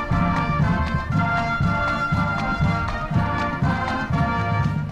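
High school marching band playing a brass-heavy tune, held horn chords over a steady drum beat.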